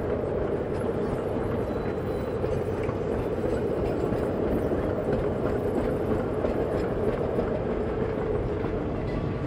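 Loaded sugar cane bins rolling past on a narrow-gauge cane railway, a steady rumble of steel wheels on rails.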